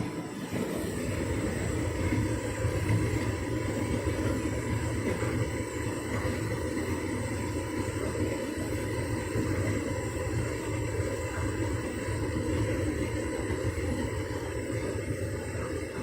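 Hotpoint Ultima S-line tumble dryer running on its 'Heat and enjoy' warming program: the drum turning and the fan blowing warm air make a steady low rumble with a faint whine.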